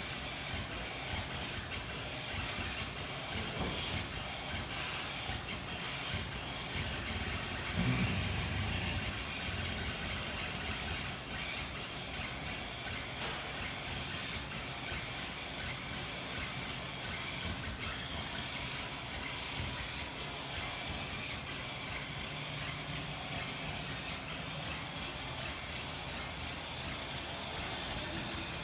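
The air-over-hydraulic motor of an air-powered drum dumper running steadily with a hiss as the unit is worked. A single louder thump about eight seconds in.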